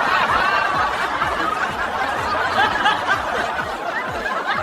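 A crowd of people laughing together, many overlapping chuckles and snickers, steady throughout.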